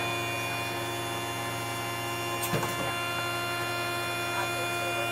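GE H80 turboprop of a DHC-3 Turbine Otter seaplane running at idle, heard from inside the cockpit as a steady hum made of several held tones. A single brief knock comes about two and a half seconds in.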